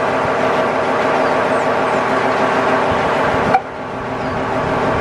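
Steady mechanical hum of locomotives standing beside each other, with several held tones. About three and a half seconds in, a sharp click, after which the sound drops and turns duller.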